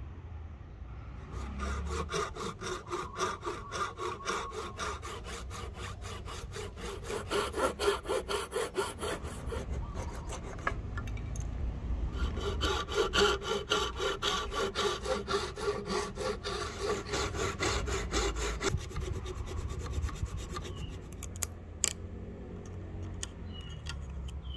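Hand saw cutting kerfs into the end of a rosewood axe handle, its strokes fast and even in two long bouts with a short pause between. The cuts form the cross-shaped slot for a star wedge. A few light clicks follow near the end.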